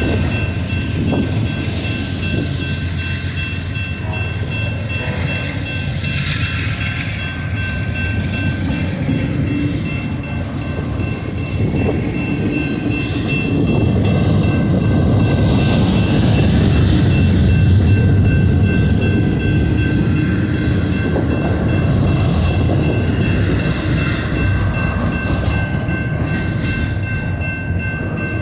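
Freight train's cars rolling past: a steady, loud rumble and rattle of wheels on rail, with a few thin, high steady tones over it, swelling slightly in the middle.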